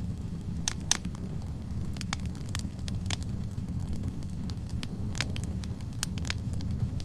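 Wood fire in a fireplace: logs burning with a steady low rumble of flames and sharp, irregular crackles and pops scattered through.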